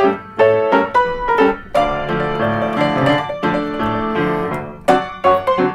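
Solo piano playing a rag: short struck chords, then from about two seconds in a denser passage of held notes, and sharp struck chords again near the end.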